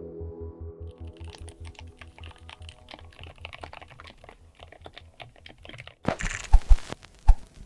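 Fast typing on a mechanical keyboard with Gateron Smoothie Mint silent linear switches (full POM), a quick run of soft, muted keystrokes. About six seconds in, a few louder, sharper key strikes follow.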